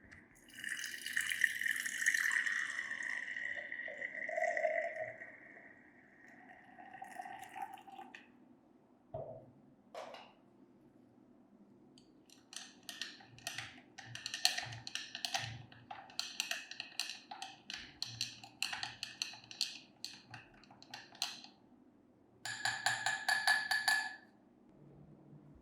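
Workshop work on a metal part: a few seconds of a high-pitched tool sound with a steady tone, a couple of knocks, then a long run of quick repeated rubbing or scrubbing strokes, and a short burst with a steady whine near the end.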